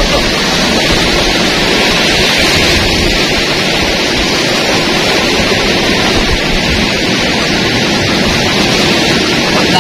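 Steady, loud roar of heavy sea surf, with no distinct breaks or surges.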